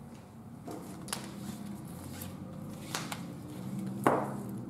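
Ratchet strap being handled: a few light clicks and rustles about a second apart, over a steady low hum, with a brief louder noise near the end.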